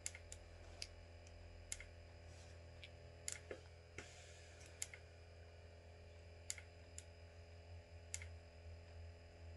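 Faint, irregular small clicks and taps, about fifteen of them, from handling a plastic cosmetic stick over a low steady room hum.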